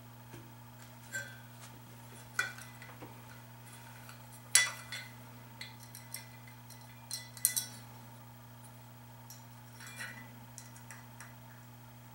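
Metal parts of an aluminum and steel work stand clinking and knocking as they are handled and fitted together: scattered sharp clicks, the loudest about four and a half seconds in.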